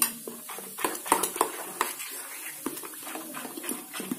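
A steel spoon vigorously stirring semolina dhokla batter in a bowl just after Eno fruit salt is added, giving irregular clicks and scrapes as the spoon hits and drags along the bowl.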